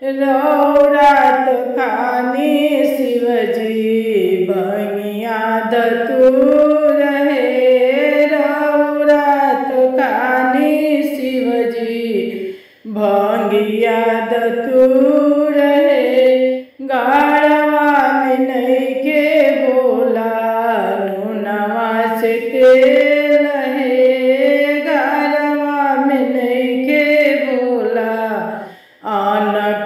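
A woman singing a Bhojpuri Shiv charcha bhajan solo, a single voice with no instruments, in long sung phrases broken by three short pauses for breath.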